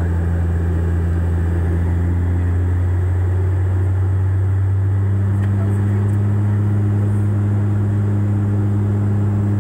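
Turboprop airliner's propeller and engine drone heard from inside the cabin beside the propeller: a steady low hum over a broad rushing noise. About five seconds in, the hum steps slightly higher in pitch.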